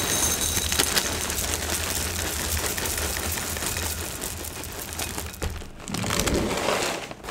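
Plastic cereal bag liner crinkling as it is handled and pulled open. The crinkling runs on continuously for about five seconds, breaks off briefly, then starts again near the end.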